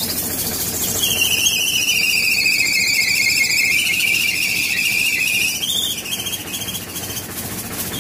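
Powertrac ALT 4000 tractor's diesel engine running with its silencer outlet sealed by a lid and plastic, the trapped exhaust forcing out past the cover in a loud, high squealing whistle. The whistle starts about a second in, sags in pitch and holds for several seconds, rises briefly, then drops back to a fainter whine.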